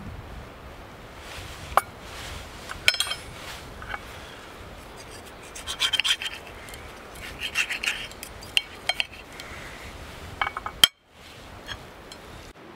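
Knife and fork cutting a pancake on a ceramic plate: cutlery scraping and clinking against the plate in several short bouts, with a few sharp clinks near the start.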